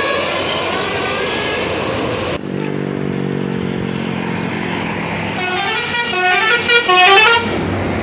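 Telolet Basuri multi-tone bus horns playing short melodies of stepping notes, with a low steady drone between the tunes; the second tune, near the end, is the loudest. The first tune breaks off suddenly after about two and a half seconds.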